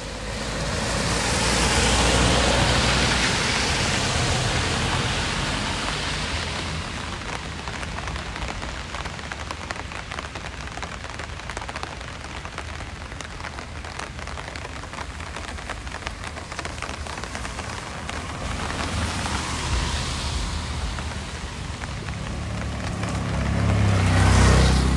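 Steady rain falling on a street, with vehicles passing on the wet road, the loudest about two seconds in and again near the end.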